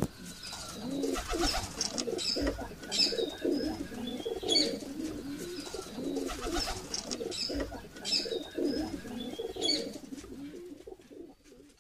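Pigeons cooing over and over, with short high bird chirps breaking in every second or two; the calls fade out near the end.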